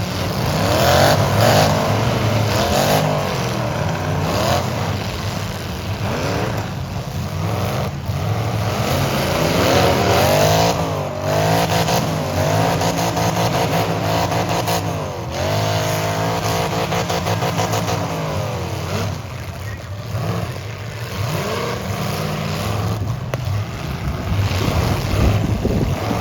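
Full-size demolition derby cars' engines revving hard, several at once, pitches climbing and dropping as the cars accelerate and back off, with one held at high revs for a couple of seconds midway.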